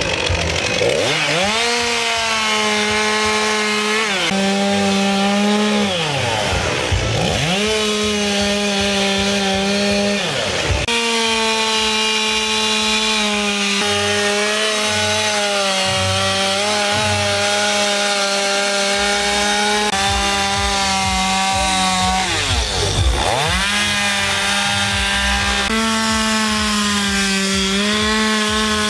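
Petrol two-stroke chainsaw carving into a wooden log, running at high revs with a steady buzzing pitch. Several times the pitch drops sharply and climbs back as the throttle is let off and opened again.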